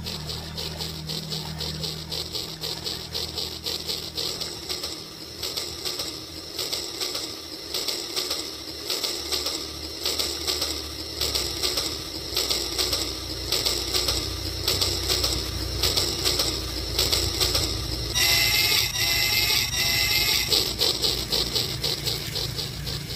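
Battery-powered Rail King toy train running along its plastic track, a steady rapid clicking of the motor and wheels over a low hum. About eighteen seconds in, a short repeated electronic tone pattern sounds for a couple of seconds.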